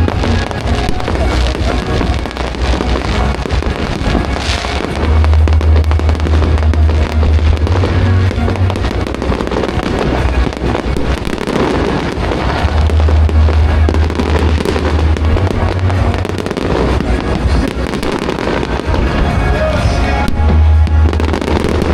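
Fireworks display: continuous bangs and crackling, with music playing alongside and a heavy low sound that comes and goes every few seconds.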